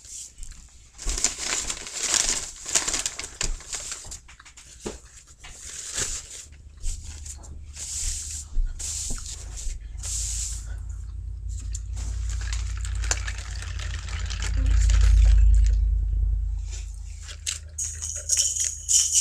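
Paper food wrapper rustling and crinkling in short bursts, with a low rumble that swells to its loudest about fifteen seconds in and then fades.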